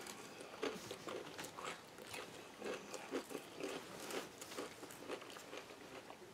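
Close-up chewing of a crisp romaine salad: irregular wet crunches and mouth sounds as the lettuce is bitten and chewed.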